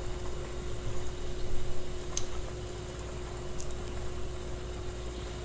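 Steady hiss of a portable gas stove heating a pot of water, with two light clicks as chopsticks touch a glass candle jar standing in the water.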